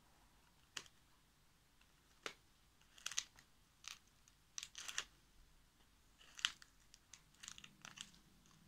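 Short, dry crackles and crinkles from dried physalis (Chinese lantern) husks and leaves being pressed and handled. They come irregularly, about a dozen in small clusters, the sharpest about halfway through and again later on.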